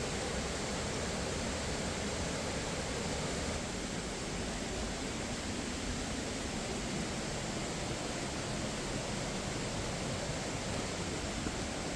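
Steady hiss of falling and running water, even and unbroken, with no distinct events.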